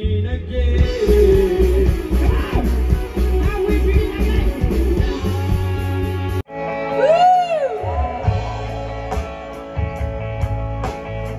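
Live rock band playing at full volume: electric guitar lines over bass and drums. About six and a half seconds in the sound cuts off abruptly and a new passage starts with a note that swoops up and back down.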